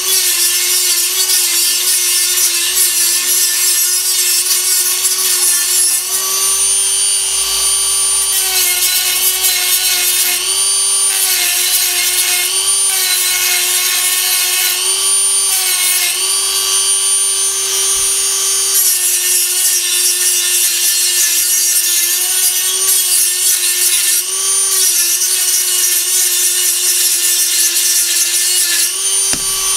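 Dremel rotary tool with a small abrasive cut-off wheel grinding steel: a steady, high motor whine over a grinding hiss, its pitch dipping slightly now and then.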